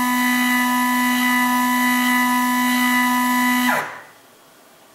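Stepper motor turning a Sherline rotary table through one 36° division: a rather loud, steady whine with a single pitch and overtones, which dips in pitch and stops a little under four seconds in as the move completes.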